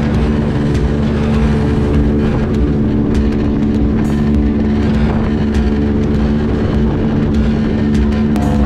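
Small aluminium motorboat running steadily under way, its motor's even drone mixed with water rushing and slapping against the hull.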